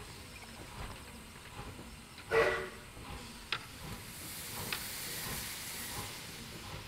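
Miniature steam locomotive moving slowly off shed: a short whistle toot about two seconds in, then steam hissing, with a couple of sharp metallic clicks.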